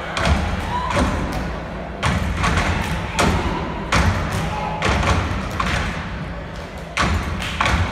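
Heavy, irregular thumps from performers stomping on a stage, about one a second, each ringing in a large hall, over a low rumble of music and voices.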